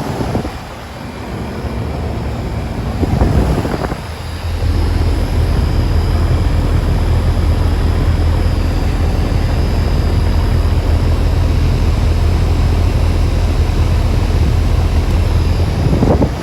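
1987 Carrier Round One 38EH condensing unit starting up about four seconds in: its three-phase Carlyle compressor comes on at once with no slow ramp-up, then the compressor hum and the condenser fan's whoosh run steadily.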